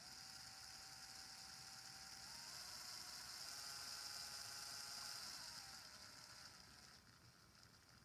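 Near silence: faint steady hiss with a few faint steady tones that step up in pitch a couple of seconds in and step back down near the end.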